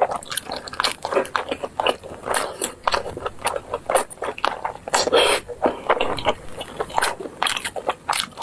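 Close-miked eating: chewing and biting of food, with quick, irregular mouth clicks and smacks several times a second.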